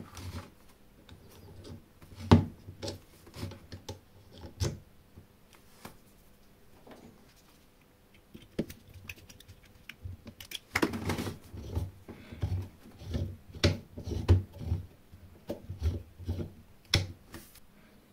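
Irregular clicks and knocks of small metal parts and tools being handled and fitted together, some with a dull low thump, busiest in the second half.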